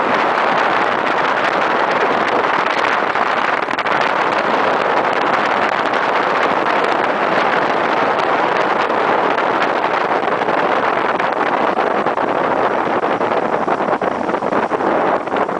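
Steady rush of wind over the microphone mixed with motorcycle engine and road noise, recorded from a moving motorcycle at speed.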